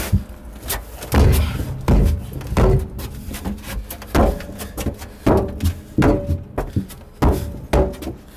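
Feet stomping on the dented sheet-metal floor of a Mercedes spare tire well, about nine heavy thuds at irregular intervals, some with a short metallic ring, pushing the dent back out.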